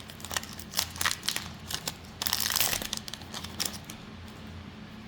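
Foil Pokémon booster pack wrapper crinkling as it is handled: a run of short crackles with one longer crinkle a little past two seconds in, quieting near the end.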